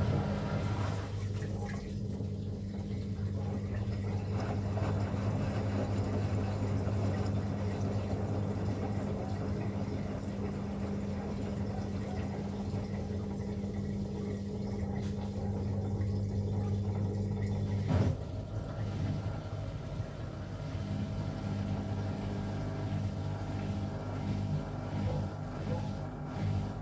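Beko bPRO500 washing machine running its first calibration cycle: a steady electric hum with water rushing, starting suddenly. About eighteen seconds in there is a click, and the hum turns into an uneven pulsing.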